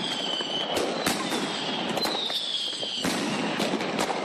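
A 70-shot salute firework cake firing shot after shot: sharp bangs come about two or three a second. For the first three seconds a high falling whistle sounds about once a second.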